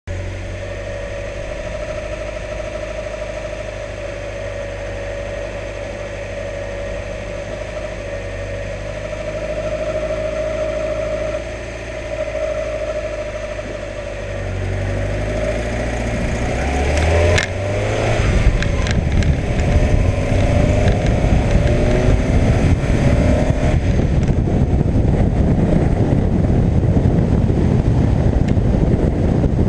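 1991 Mazda Miata's 1.6-litre four-cylinder engine running with a steady, slightly wavering whir over the engine hum, a whirring noise the owner cannot place. About halfway through the sound grows louder and rougher, with a rushing noise taking over.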